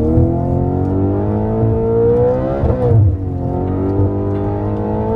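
Audi RS5's 4.2-litre V8 accelerating, heard from inside the cabin: the revs climb, drop with an upshift a little under three seconds in, then climb again.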